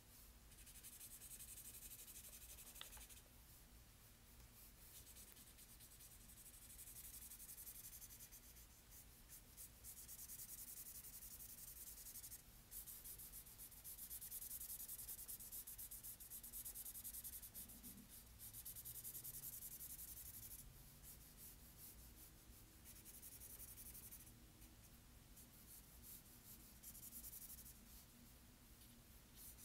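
Yellow colouring pen scratching back and forth on paper as an area is shaded in with quick strokes. The scratching comes in runs of a few seconds, with brief pauses between them.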